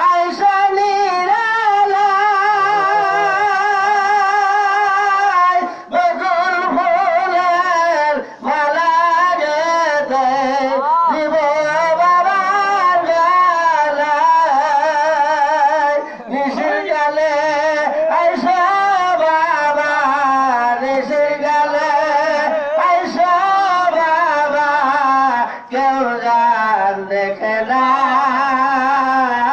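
A man singing a Bengali devotional gazal (a Sufi praise song) in long held notes with strong vibrato, pausing briefly for breath between phrases.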